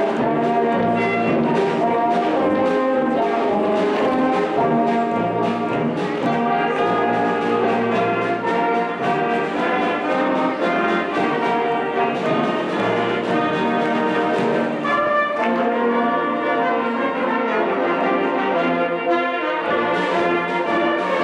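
Band music led by brass instruments, several parts playing held notes together in a steady, continuous piece.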